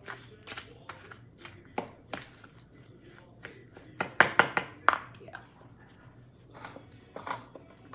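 Metal spoon stirring and scraping a moist cracker salad in a plastic bowl: scattered clicks and scrapes, with a quick run of louder knocks against the bowl about four seconds in.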